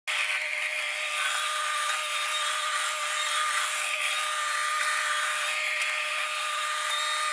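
Bobcat T630 skid steer running steadily with a high, even whine over a hiss. The sound cuts in suddenly.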